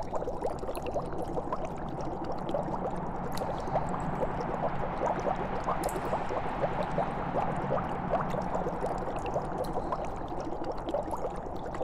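Liquid bubbling and gurgling steadily: a dense, unbroken stream of small pops over a low steady hum.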